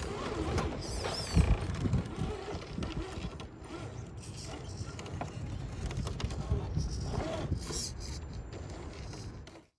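1:10 scale RC rock crawler's small electric motor and gears whining in short rising and falling spurts as it crawls over rock, with scattered knocks and scrapes.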